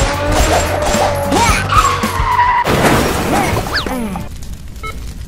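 Dubbed car sound effects: engines revving up and down with a long tire screech, then a crash about three seconds in. After that the sound drops and a string of short beeping tones runs to the end.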